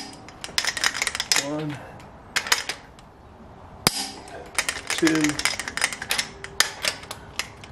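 Click-type torque wrench tightening head-stud nuts on a 7.3 IDI diesel's cylinder head. There are runs of rapid ratchet clicks as the handle is swung back, and a single sharp click about four seconds in as the wrench reaches its set torque.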